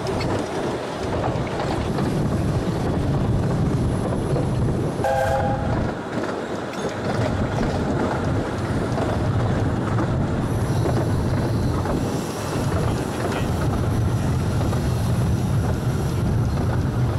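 A 15-inch-gauge Ravenglass and Eskdale Railway train running along the track, with the steady noise of wheels on rail and a short high tone about five seconds in.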